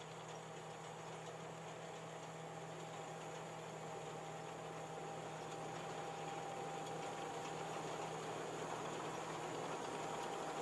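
Tracked rice combine harvester running steadily as it cuts standing rice, a continuous machine hum with a couple of held tones that grows slowly louder as it comes closer.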